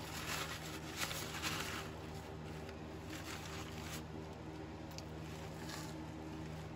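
Paper shop towel crinkling and rubbing as spilled rear-end fluid is wiped from the transaxle fill hole, loudest in the first two seconds, over a steady low hum.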